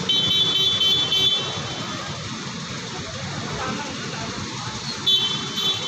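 Street traffic noise, with a shrill pulsing tone repeating for about a second and a half at the start and again near the end.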